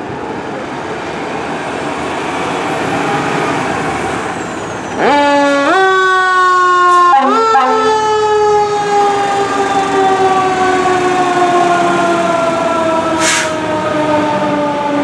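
Fire engine's engine pulling away, growing louder. About five seconds in its siren starts with a sharp rise in pitch, jumps up again about two seconds later, then falls slowly and steadily in pitch as it winds down. There is a short hiss near the end.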